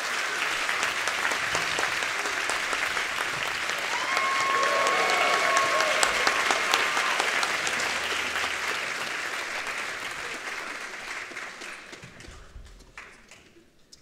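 Audience applauding a conductor onto the stage, swelling slightly a few seconds in and then dying away near the end.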